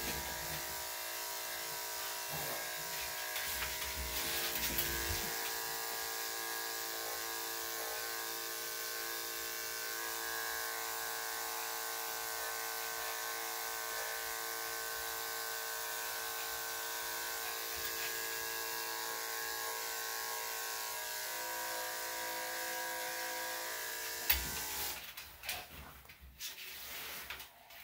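Corded electric dog-grooming clippers run with a steady hum as they clip a Maltese's leg coat. The hum cuts off with a click about 24 seconds in, leaving quieter, uneven handling sounds.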